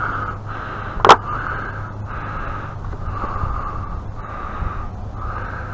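A single sharp metallic clink about a second in, a hand tool knocking against the pressure washer's metal parts while bolts are being worked loose. Behind it runs a steady low hum with a faint rushing noise that comes and goes.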